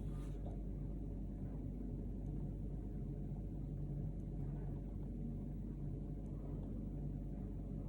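A steady, even low hum, unchanging throughout.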